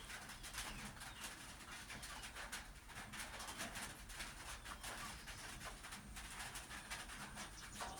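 Faint, irregular patter of rain drops on a roof, over a low steady hum.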